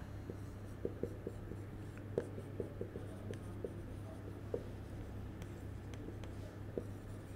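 Marker pen writing on a whiteboard: faint scratches and small ticks of the pen tip as words are written, over a low steady hum.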